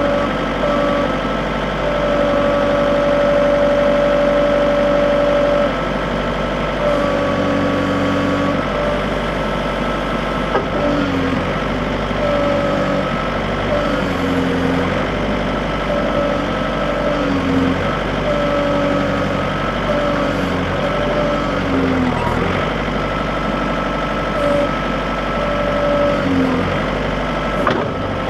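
John Deere 110 compact backhoe's diesel engine running, its pitch stepping up and dipping again and again as it comes under load while the backhoe works.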